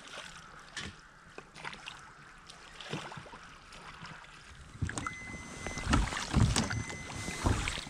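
Oars of an inflatable rowing boat dipping and splashing, heard faint with scattered light knocks. About five seconds in it grows louder and closer, with knocks from the oars and rumbling wind on the microphone.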